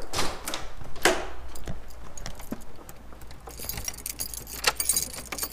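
A bunch of metal keys jangling, densest for about two seconds near the end, after a few sharp knocks in the first second.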